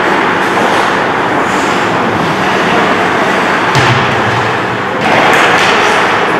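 Echoing ice-rink game noise: a steady hiss of skates on ice and general arena din, with a single thud a little under four seconds in.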